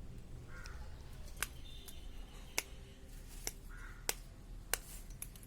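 Silicone spinner pop-it bubbles being pressed through from the reverse side, each giving a sharp little pop; about seven pops, one every half second to a second.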